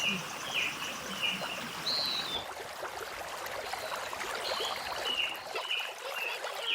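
Mountain stream water running steadily, with a small bird chirping short, repeated notes over it.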